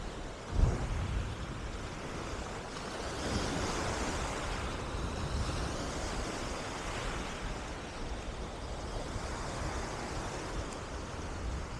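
Surf breaking and washing up a sandy beach, a steady wash that swells and eases, with wind rumbling on the microphone. A short low rumble of wind hits the microphone about half a second in.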